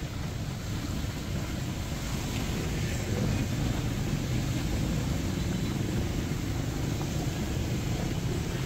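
Heavy rain falling steadily, with a low rumble of passing traffic mixed in.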